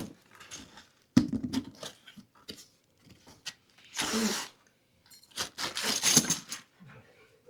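Rustling and crinkling of packaging, with a knock about a second in, as new auto parts (KYB shock absorbers) are handled and unboxed.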